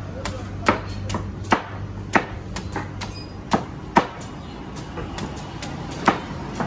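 Machete chopping into the husk of a hand-held young coconut: a series of sharp strikes at an uneven pace, a handful much louder than the rest, as the husk is trimmed away to open the nut.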